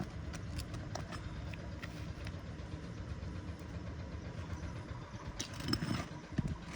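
Shingle nail-removal tool working a roofing nail loose under an asphalt shingle: light clicks and gritty scraping, with a louder run of scraping and knocking about five and a half seconds in, over a steady low rumble.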